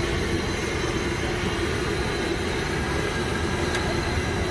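Moong bhajia fritters deep-frying in a large kadhai of hot oil, a steady sizzle over a low, even rumble.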